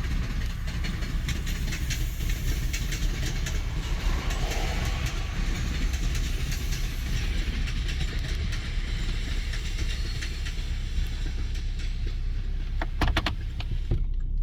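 Freight train rolling past, a steady heavy rumble with wheels clacking over the rail joints, a quick cluster of clacks near the end.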